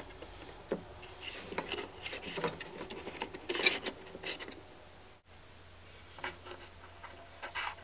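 Scattered light clicks, taps and rubbing of small objects being handled and moved, thickest in the first half and sparser near the end.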